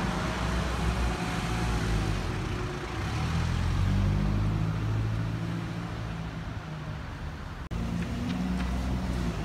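Road traffic: vehicle engines running with a steady low hum. The sound cuts out abruptly near the end, then a double-decker bus's engine is heard as it drives toward the listener.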